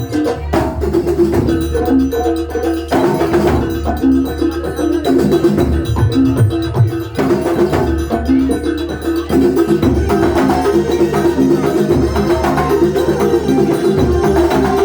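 Kuntulan ensemble playing: steady drum strokes under repeated ringing notes from pitched percussion.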